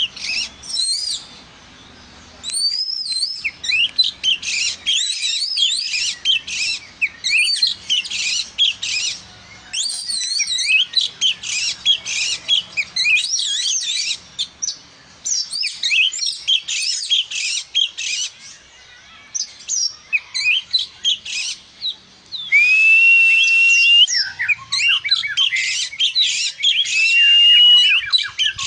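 Oriental magpie-robin (kacer) singing a long, varied song of fast chirps and trills with only brief pauses. In the second half it drops in two drawn-out whistled notes.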